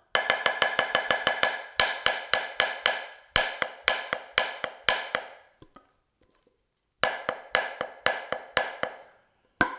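Wooden drumstick tapping an Offworld Invader V3 practice pad on its vinyl mylar laminate surface, which gives a higher-pitched, louder, articulate tap. It plays quick runs of single strokes, about eight or nine a second, each a sharp tap with a slight ring, stops for about a second midway, then plays another run and a single final hit.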